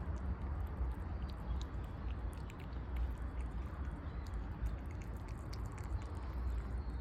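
A cat eating, chewing its food with many small sharp clicks, over a steady low rumble.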